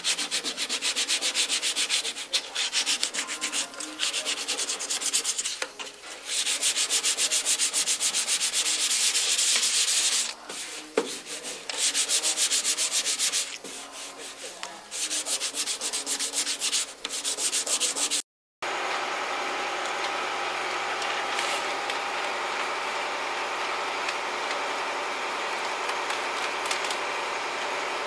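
Sandpaper rubbed by hand over a car's primed steel body panel, in quick uneven strokes that start and pause. After a sudden cut, about two-thirds of the way in, a steady mechanical running sound takes over.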